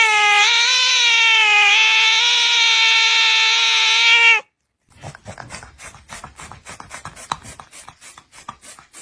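A domestic cat's long drawn-out yowl, held steady with a slightly wavering pitch, cutting off suddenly a little over four seconds in. A run of quick, irregular faint clicks follows.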